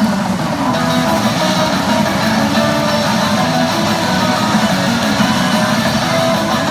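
Music led by a plucked guitar, at a steady level.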